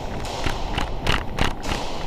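Quick footsteps of a player moving, an uneven patter of soft knocks about three a second.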